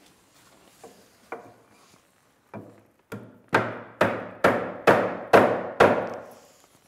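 Rubber-headed mallet striking the wooden guide block of a workbench's sliding deadman, driving its tapered sliding dovetail home. A few light taps, then from about halfway in six hard knocks about half a second apart, each ringing briefly in the timber.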